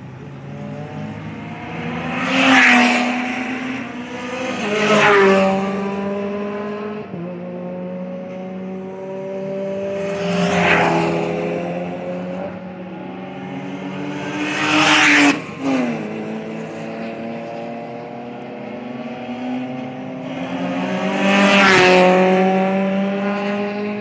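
Cars passing at speed on a race circuit's straight, five times in all, each engine swelling to a peak and dropping in pitch as it goes by. Other engines are heard further off between the passes.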